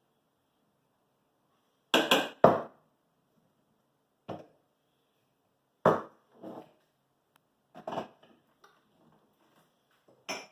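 A series of separate sharp knocks and clunks: espresso preparation, with the portafilter and tamper being handled and the portafilter fitted to the machine. The loudest are a close pair about two seconds in, and the rest come every second or two.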